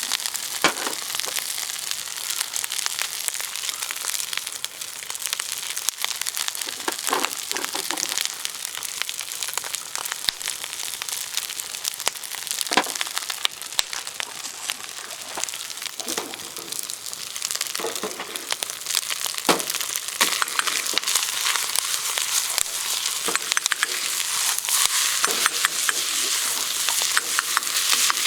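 Fried rice sizzling in a camp wok over a campfire, with occasional knocks and scrapes of stirring. The sizzle grows louder near the end.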